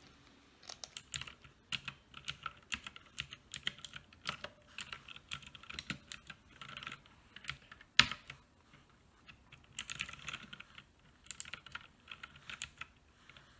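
Uhuru UMK-100 60% mechanical keyboard with blue switches being pressed, keys clicking irregularly in runs with short pauses, and one sharper, louder clack about eight seconds in.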